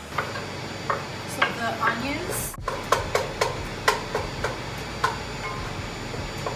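Onions sizzling in hot olive oil in a frying pan, with a steady hiss and a utensil clicking and knocking against the pan about a dozen times as they are stirred.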